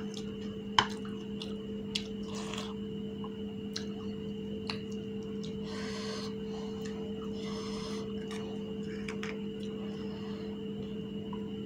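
A few sharp clicks of a metal spoon against a ceramic bowl, the loudest about a second in, then brief crisp crunching a few seconds later as a fuchka (puri shell) is eaten. A steady low hum runs underneath.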